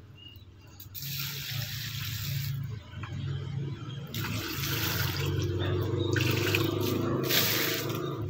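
Dissolved fertilizer water poured from a bucket onto dry leaf mulch and soil at the base of a grapevine, splashing. There is a short pour about a second in, then a longer, louder one from about four seconds to near the end.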